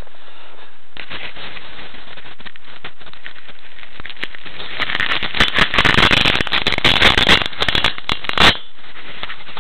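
The skis of a model plane scraping over snow, picked up by its onboard camera. A steady hiss, then from about four seconds in a loud crackling and rattling that stops suddenly shortly before the end.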